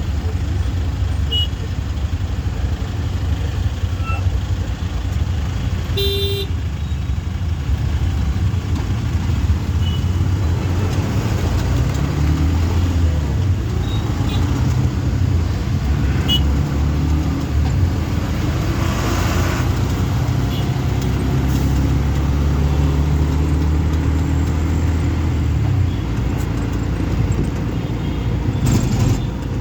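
Auto-rickshaw engine running as the rickshaw drives, its pitch rising and falling with the throttle, with a short horn toot about six seconds in.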